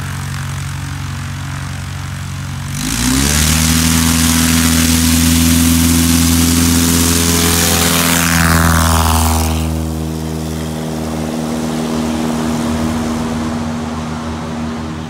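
CubCrafters Carbon Cub's piston engine and propeller idling at the start line, then opening up to full throttle about three seconds in for a short takeoff run. It passes close by with a drop in pitch and carries on as a quieter steady drone.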